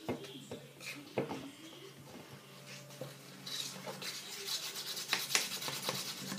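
A few light knocks, then from about halfway a fast, continuous scraping and rubbing: a utensil stirring a thick shampoo-and-detergent slime mixture against its container.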